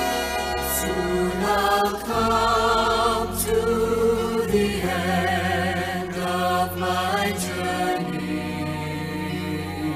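Music: the introduction of a gospel song, with sustained chords over held bass notes that change about two seconds in and again about five seconds in.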